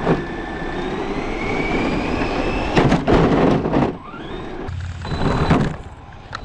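Radio-controlled car's electric motor whining and rising in pitch as it accelerates, with loud clattering knocks and scrapes of the toy cars colliding about three seconds in and again about five seconds in.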